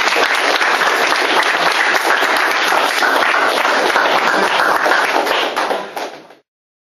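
A group of people applauding, a dense patter of many hands clapping, which fades out and cuts off to silence near the end.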